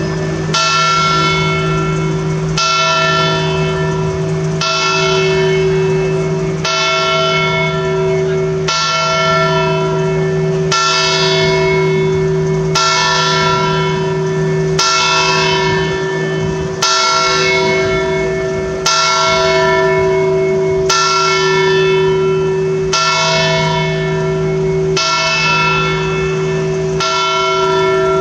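Memorial bell of Savona's war memorial (Campana dei Caduti) tolling slowly, one stroke about every two seconds, about fourteen strokes, each ringing on into the next. This is the daily toll that calls for a minute's remembrance of the war dead.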